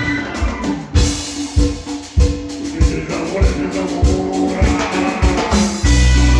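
Cumbia band music. The deep bass thins out for most of the stretch, and the full beat comes back near the end.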